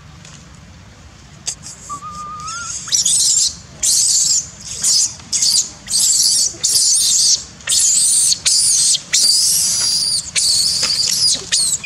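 Baby long-tailed macaque screaming in distress: a run of loud, very high-pitched cries, each under a second, starting about three seconds in and repeating until near the end. These are the frightened cries of an infant afraid of falling while clinging to a tree.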